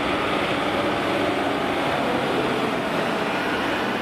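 Diesel engine of a heavy multi-axle Tatra dump truck running steadily under load as it drives along a dirt track.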